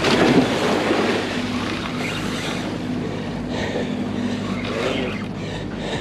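Steady low mechanical hum from the boat, with water sloshing and splashing at the stern, loudest in a surge right at the start and again more softly a few seconds later.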